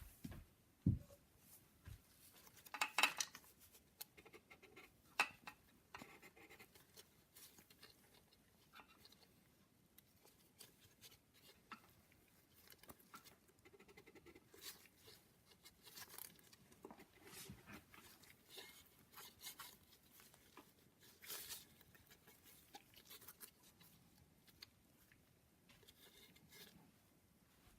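Faint, scattered clicks and light taps of engine parts being handled, the loudest cluster about three seconds in, with soft rustling between.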